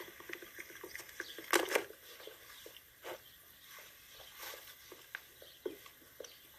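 A dog chewing and tearing at a whole rabbit carcass: irregular wet crunches and clicks, with the loudest burst of crunching about one and a half seconds in.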